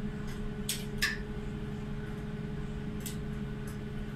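Steady low hum of the ferry's machinery, heard inside the bridge, with several short sharp clicks in the first second and one more at about three seconds.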